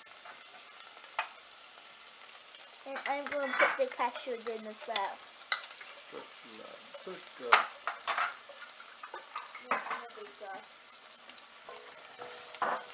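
Chopped mixed vegetables (carrot, sweet corn, beans, capsicum) sizzling in oil in two enamelled saucepans on a gas hob, with a steady hiss. Plastic spatulas scrape and knock against the pans as they are stirred, in irregular strokes.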